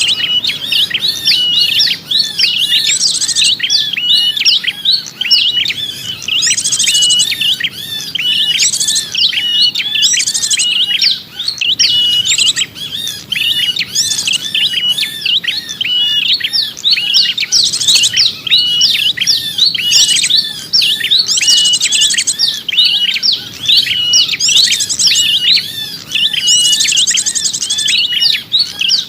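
Small songbird chirping rapidly and without pause, in quick repeated notes, with a short, higher buzzy trill every few seconds: a lure call (suara pikat) used to attract small birds.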